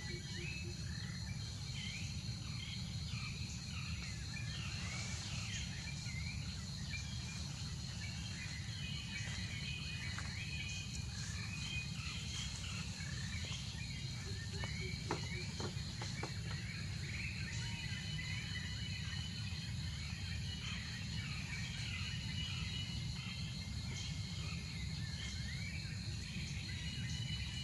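Outdoor ambience: insects keeping up a steady high tone, with many scattered bird chirps over a low steady rumble. A few faint ticks come about halfway through.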